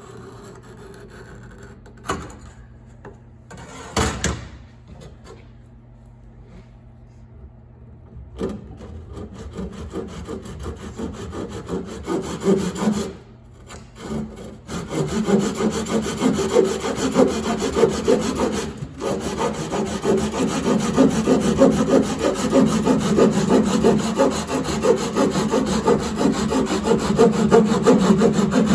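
Japanese panel saw cutting through a kayak's seat flange in quick back-and-forth strokes. Two knocks come in the first few seconds. The sawing starts about a third of the way in, stops briefly, then carries on louder and steadier through the second half.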